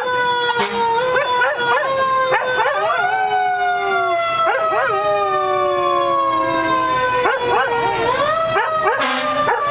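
A standard poodle howling along with a fire truck siren: the siren holds one steady tone that slowly sinks in pitch, while the dog gives a string of short rising-and-falling howls, with one long howl held for about four seconds midway.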